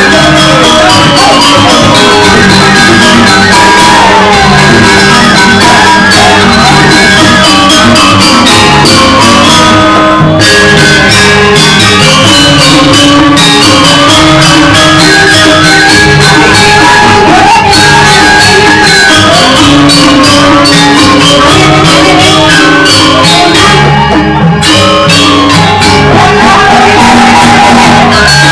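Loud Balinese joged dance music playing throughout: a quick, steady percussion beat with held ringing tones, and a woman's voice singing over it at times.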